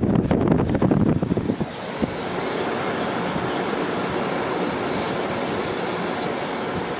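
2001 White-Westinghouse 5,000 BTU window air conditioner running on high, its GE fan motor and LG compressor making a steady whoosh and hum that is quiet and even. Wind buffets the microphone during the first couple of seconds.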